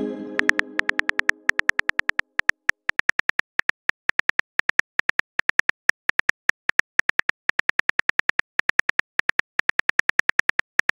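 Simulated phone-keyboard typing clicks, a rapid even tapping of about seven clicks a second as a text message is typed. A pitched chime-like tone fades out over the first second and a half.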